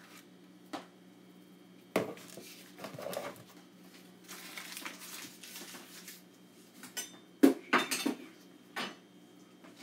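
Scattered clinks and knocks of a spoon and kitchen utensils, with a softer rustling stretch in the middle and a cluster of sharper clinks near the end.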